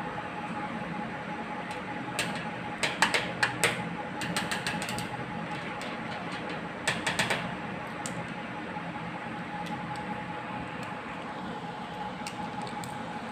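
Light clicks and taps as a kitten plays with a plastic stick toy against the cabinet and tile floor. They come in quick bunches a couple of seconds in and again about seven seconds in, over a steady background hum.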